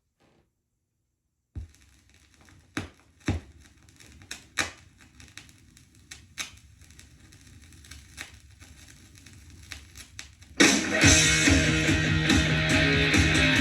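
A turntable stylus dropping onto a vinyl record with a thump, then the lead-in groove crackling and popping with a faint hum for several seconds. About ten seconds in, a rock song with electric guitar starts playing loudly from the record.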